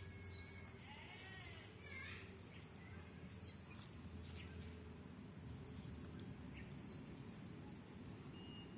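Faint outdoor background with a small bird's short, high, downward chirps, four of them spread across a few seconds, over a steady low hum.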